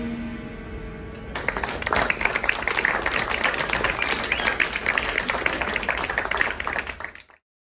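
A jazz quintet's final chord ringing out and fading, then audience applause starting about a second and a half in and cutting off suddenly near the end.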